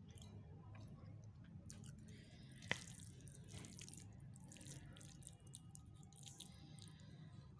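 Fingers mixing moist rice with curry on a steel plate: faint soft squishing and small ticks, with one sharp click about two and a half seconds in.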